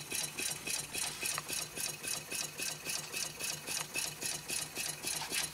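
Home-built tin-can Stirling engine running steadily, about six swishing strokes a second. Its steel-wool displacer rubs inside the cylinder on each stroke.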